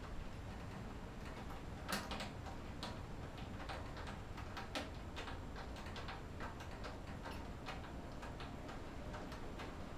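Irregular small clicks and taps of hand tools and motorcycle parts being handled and fitted back together, with louder knocks about two seconds in and near five seconds.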